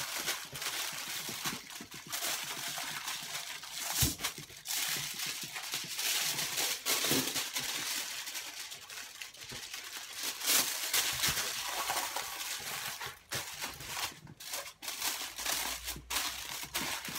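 Aluminium foil crinkling and crumpling as hands fold and press it tightly around a joint of lamb to seal it for roasting. Irregular crackling, with a few sharper, louder crunches, around four and ten seconds in.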